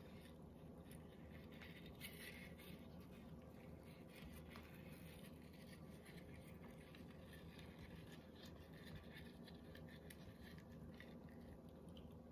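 Near silence: room tone with a steady low hum and a few faint scattered ticks.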